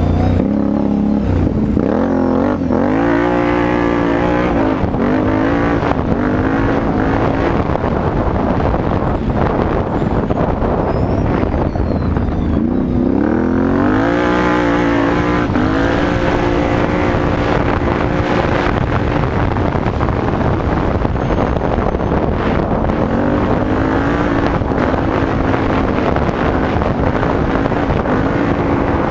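Can-Am Renegade 850 XXC quad's Rotax V-twin running through a Yoshimura exhaust while riding. Its pitch rises three times as it accelerates and holds or eases off in between.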